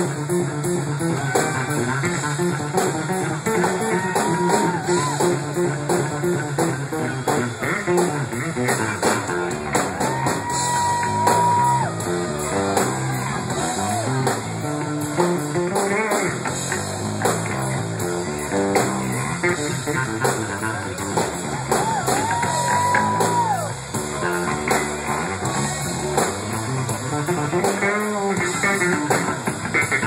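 Live rock band playing with electric guitars and a drum kit. The lead guitar holds long notes that bend up into pitch and sag off at the end, three times.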